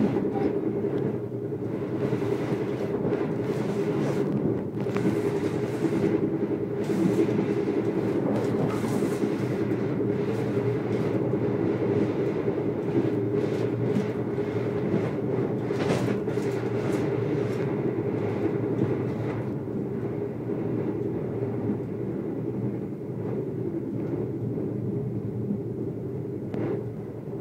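Passenger train running at speed, heard from inside a carriage: a steady rumble of wheels on rails, broken by occasional sharp clicks and knocks.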